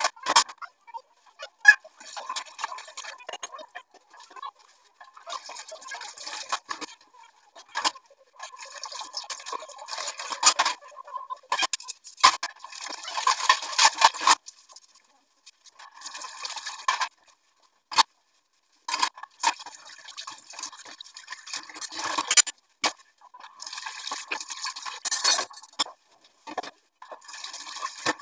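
Dishes being washed at a stainless steel sink: repeated bursts of scrubbing and splashing water, each lasting one to three seconds with short pauses between. Sharp clinks of dishes and utensils knock against each other and the steel.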